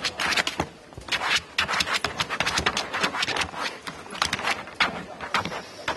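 German shepherd detection dog scratching hard with its front paws at a hard-shell plastic suitcase, a rapid, irregular run of claw scrapes on the shell. Scratching at a bag is how an active-alert drug dog marks where it smells narcotics.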